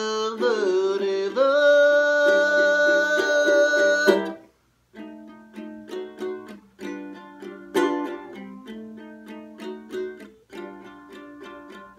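A man's voice holds one long sung note over a koa Martin tenor ukulele for about four seconds, then stops. After a brief break the ukulele is plucked alone, more quietly, in a steady pattern of notes.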